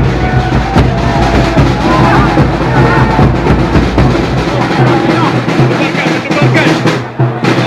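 A large football crowd chanting and singing in the stands, with drums beaten over and over.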